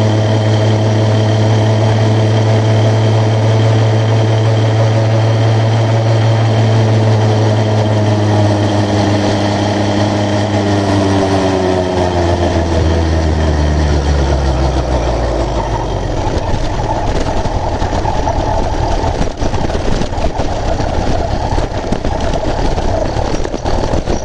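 80cc two-stroke motorised bicycle engine running steadily at speed. About eight seconds in, its pitch falls steadily for several seconds as the bike slows. For the rest of the time the clear engine note gives way to a rough, steady rumble of wind and road noise, with a few knocks near the end.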